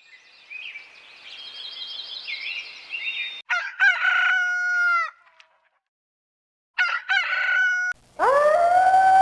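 A rooster crowing twice, after a few seconds of high chirping. Near the end a long howl begins, rising and then falling in pitch.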